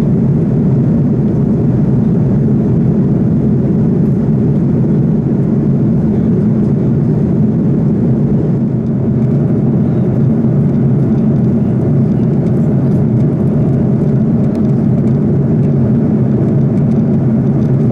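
Steady engine and airflow noise heard inside the passenger cabin of an Airbus A330-300 in flight, an even deep rumble that stays unchanged throughout.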